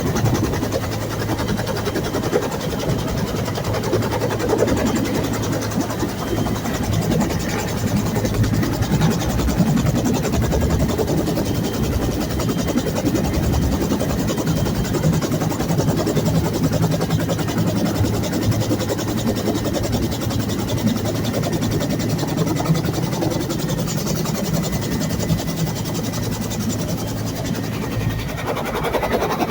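Bell UH-1 Huey helicopter running, a loud steady engine and rotor noise.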